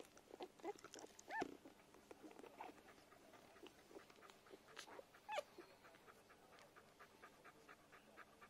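Newborn puppies nursing on their mother: faint squeaks and whimpers, with two louder, high squeals that rise and fall, about a second and a half in and again about five seconds in. In the second half there is a soft run of quick, even suckling clicks, several a second.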